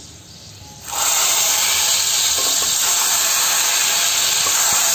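Hot tempering oil with fried garlic, curry leaves and dry red chillies poured into a pot of tomato curry, hissing and sizzling loudly from about a second in.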